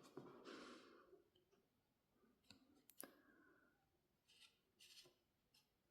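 Near silence, with a few faint clicks and soft rustles from album contents being handled.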